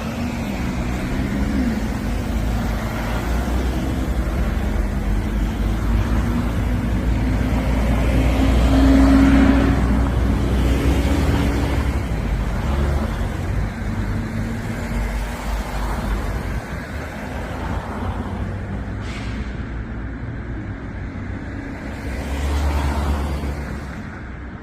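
Road traffic passing a moving bicycle, over steady wind rumble on the microphone. One vehicle swells and fades about nine seconds in, and another near the end.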